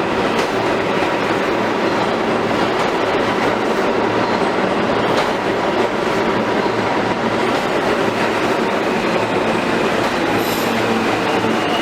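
New York City subway R train pulling into a station: a steady, loud rumble of the cars running on the rails, with a thin high squeal coming in near the end.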